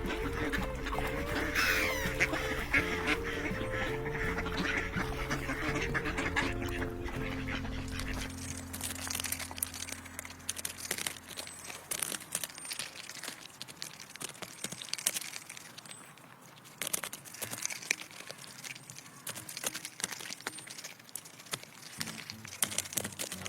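Ducks quacking over soft background music with held notes. The music fades out about ten seconds in, leaving a busy run of small clicks and ticks.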